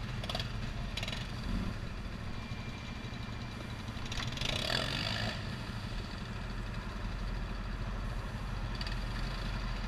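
ATV engine idling steadily, with a brief noise about halfway through.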